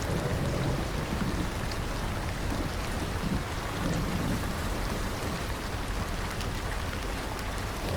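Steady rain falling, with low rumbles of thunder rolling underneath at intervals.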